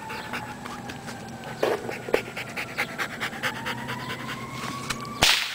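German shepherd dog panting quickly and heavily, about five breaths a second, close up. A single sharp crack cuts in near the end.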